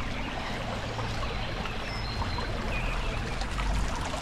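Small brook running fast over stones in a narrow stone-walled channel, a steady babbling and trickling.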